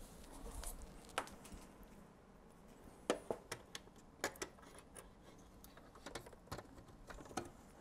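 Faint, scattered clicks and light taps, about ten of them at irregular intervals, from hands handling an electronic test instrument on a workbench.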